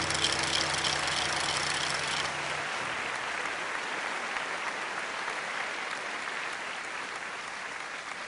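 Audience applauding steadily, with the band's last held chord dying away in the first two and a half seconds.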